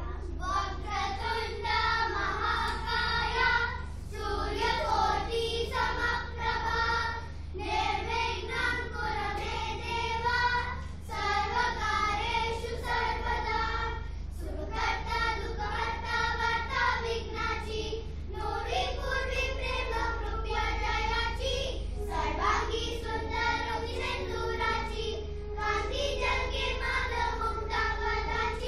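A group of children singing together, phrase after phrase with short breaks between, over a steady low hum.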